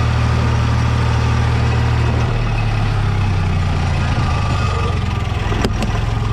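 Farm tractor engine running steadily under way; about two seconds in, its low note shifts. A single sharp click comes near the end.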